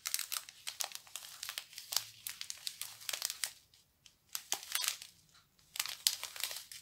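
Small clear plastic bags full of diamond painting drills crinkling as they are handled and turned, in short bursts with brief pauses.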